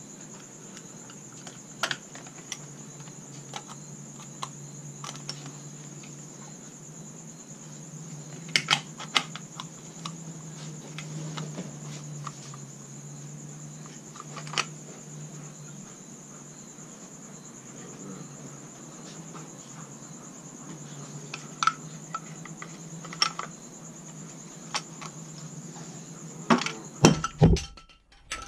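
Metal parts of an SKS rifle clicking and knocking against each other and the wooden stock as the rifle is reassembled: a few scattered sharp clicks, with a cluster of louder knocks near the end. Under them runs a steady high-pitched whine and a low hum.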